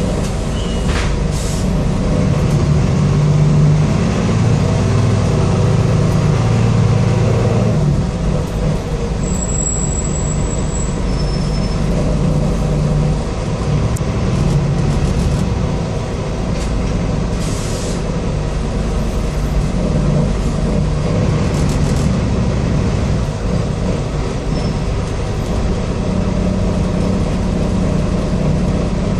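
Ikarus 127V city bus heard from inside, under way: the diesel engine and drivetrain running with road noise, the engine note shifting as the bus speeds up and slows. A short hiss comes about two-thirds of the way through.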